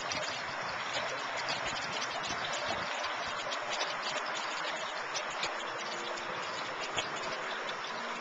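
Small wall-mounted fountain trickling water into its shell-shaped basin: a steady splashing patter with many small ticks of falling drops.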